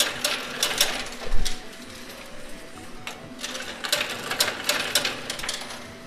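Coin pusher arcade machine with coins dropping and clattering onto the metal pusher tray, in two rapid runs of clicks, the second starting about three seconds in. A dull thump about a second and a half in.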